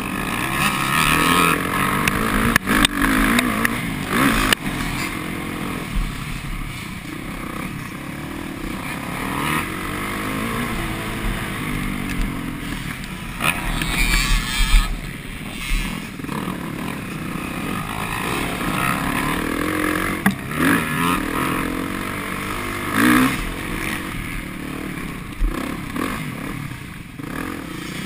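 Kawasaki KX450F's four-stroke single-cylinder engine revving up and down continuously as the motocross bike is ridden around a dirt track, with a few sharp knocks in the first few seconds.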